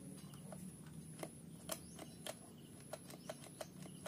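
Faint, scattered light clicks and taps, about nine in four seconds at irregular spacing, over a low steady background hum.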